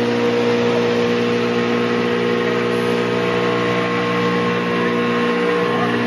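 An engine running steadily, a constant low drone with a firm pitched hum.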